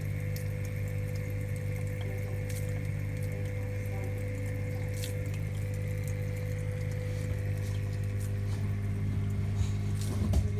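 Reef-tank calcium reactor running: a steady recirculation-pump hum with water moving and faint fizzing ticks inside the chamber. The owner gets this fizzing even with no CO2 going in. A brief low knock comes near the end.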